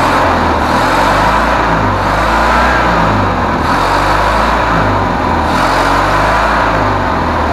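Briggs & Stratton 18 hp OHV twin engine of a homemade surface-drive mud motor running steadily, not yet warmed up after starting.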